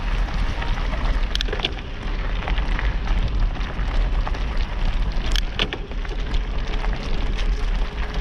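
Tyres rolling fast over a loose gravel track: a steady crunching, crackling rattle with a couple of sharp stone clicks, about a second in and again past five seconds. Wind rumbles on the camera microphone throughout.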